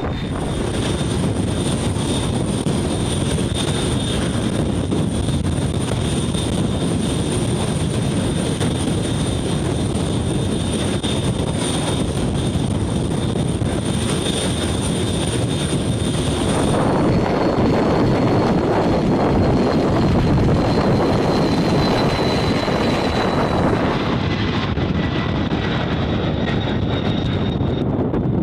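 Aircraft turbine engines running with a steady rush and a thin high whine. About two-thirds of the way through, the sound shifts to a louder, deeper rush with a slightly falling whine.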